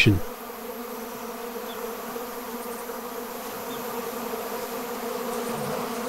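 A steady buzz with a held low hum underneath, unchanging throughout.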